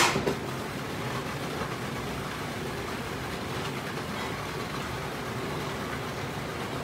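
Food processor motor running steadily, blending a tomato arrabbiata sauce, with a brief knock right at the start.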